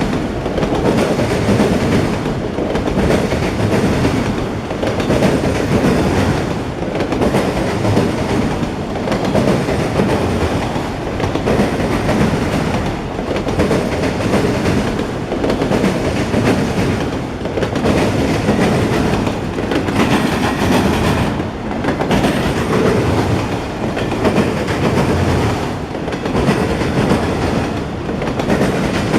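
CSX autorack freight cars rolling past with a steady clickety-clack of wheels on the rails. The noise swells and dips about every two seconds as each car goes by.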